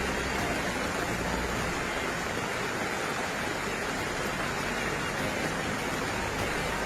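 Heavy rain falling, a steady, even hiss with no let-up. A low vehicle rumble underneath fades out a couple of seconds in and comes back near the end.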